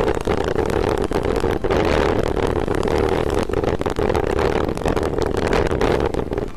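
Launched steel roller coaster train running at speed on its track, heard from on board: a steady rumble of the wheels with many short rattling clicks.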